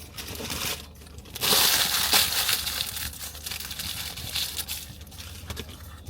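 Paper food wrapper or bag being crumpled and scrunched close to the microphone: a loud, ragged crackling about a second and a half in, easing into smaller crinkles.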